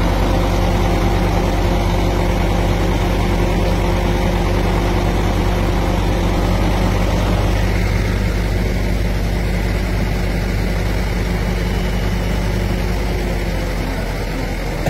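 Truck crane's diesel engine running steadily at a constant speed while hoisting an overturned vehicle out of a canal.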